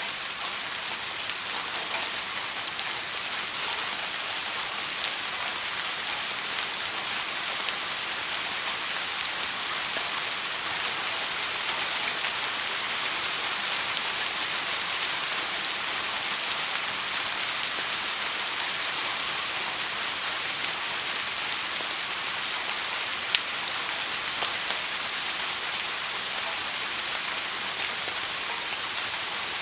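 Steady soft rainfall, an even hiss with scattered faint drop ticks and one sharper drop tick about 23 seconds in.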